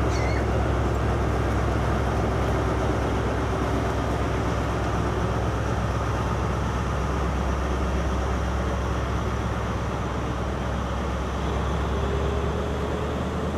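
Diesel train engine running with a steady low rumble; a faint tone above it climbs slightly near the end.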